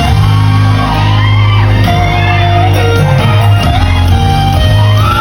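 A pop song played loud through a large hall's sound system, with held bass notes, and fans shouting and screaming over it.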